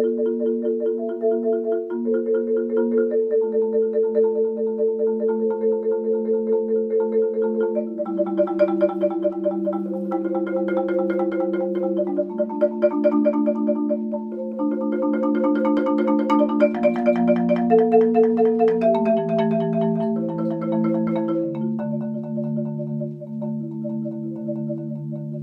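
Solo marimba played with four mallets: rapidly repeated strokes sustain chords that change every second or two. The playing swells louder and brighter twice, and the bass notes step lower near the end.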